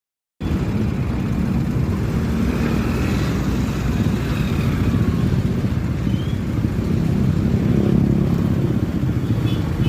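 Excavator engine running steadily, cutting in abruptly just under half a second in.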